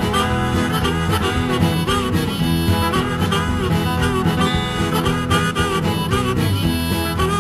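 Instrumental break of an upbeat country boogie song: a harmonica plays the lead with bending notes over an acoustic guitar rhythm.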